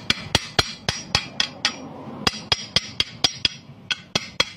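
Hammer striking a freshly welded steel pipe-and-flange joint in quick, even blows, about four a second with a brief pause near the middle. Each blow rings like metal: the fresh weld is being knocked clean of its slag.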